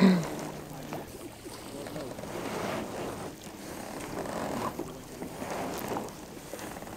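Sea kayak paddles dipping and splashing as a group of kayaks paddles off across calm water, the strokes coming in soft, uneven swells. A short call from a voice is heard right at the start.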